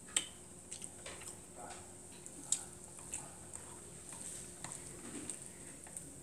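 Close-up eating sounds: quiet chewing with scattered light mouth clicks, and a plastic fork picking through a plate of rice with small taps and scrapes.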